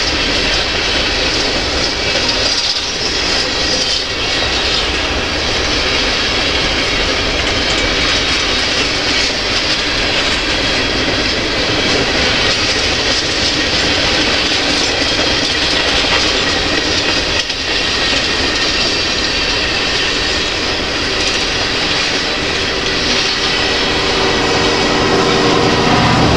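Freight train tank cars rolling past on steel wheels, a steady rumble with wheel clatter over the rail joints. A thin squeal of wheels on the rail comes in near the end.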